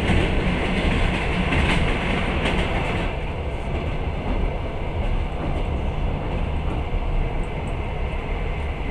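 Running noise of a passenger train on the rails, heard from inside a carriage. A passing train on the adjacent track makes it louder and brighter until about three seconds in, after which the steady rumble of the carriage continues.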